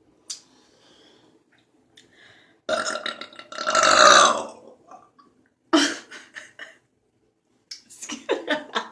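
A woman burping loudly from gulped Pepsi: one long burp starting about three seconds in, a shorter one near six seconds, and more burping near the end.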